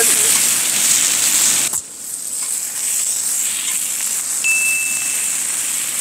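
Pork belly and kimchi sizzling on a hot griddle pan. The sound cuts off suddenly about two seconds in and gives way to a quieter steady hiss, with a short thin high whistle near the end.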